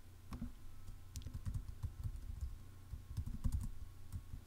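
Typing on a computer keyboard: a quick, irregular run of keystrokes, entering an email address and password into a web form.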